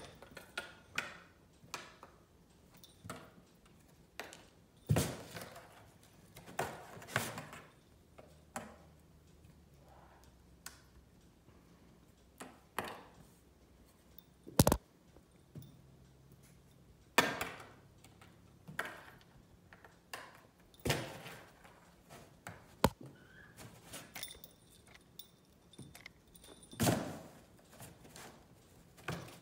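A cat pawing at and pushing into a cardboard box, going after a toy poking out of it: irregular knocks, thumps and scrapes on the cardboard, with one sharp knock about halfway through.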